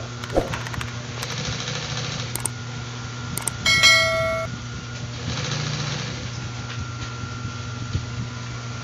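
Industrial sewing machine running with a steady motor hum as vinyl edging is fed under the needle, with a few light clicks. About four seconds in comes a short ringing bell chime, the loudest sound.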